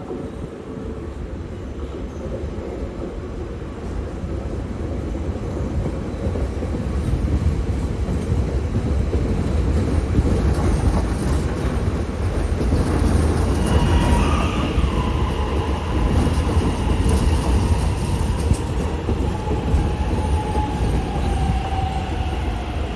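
Electric suburban train running on the rails, its rumble growing louder over the first several seconds. About halfway in, a high whine sets in, and near the end its pitch falls gently.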